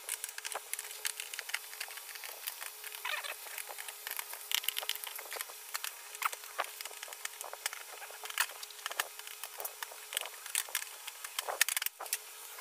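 Scattered small clicks and taps of a screwdriver and hands on an LED TV's plastic back cover as its screws are taken out and the cover is removed.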